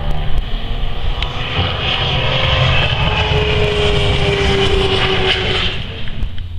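A 2014 Audi R18 e-tron quattro Le Mans prototype's V6 turbodiesel running at speed as the car passes, its note sliding down in pitch as it goes by over a high hiss. The sound drops away suddenly near the end.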